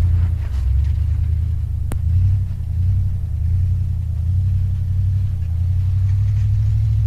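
Big-block V8 of a 1964 Dodge Custom 880 running at fairly steady revs, a low exhaust rumble whose pitch wavers slightly. A single sharp click sounds about two seconds in.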